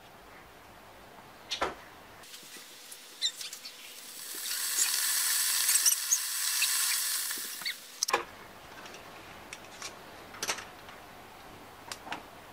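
Electric kettle heating water: a high hiss dotted with small crackles swells from about four seconds in and stops abruptly about eight seconds in. A click comes before it, and a few more clicks and knocks near the end.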